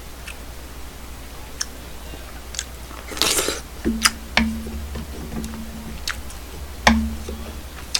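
Someone eating beef and radish soup close to a microphone: chewing, a slurp about three seconds in, and several sharp clicks of utensils against the bowl, the loudest near the end. A low steady hum runs from about four seconds to seven.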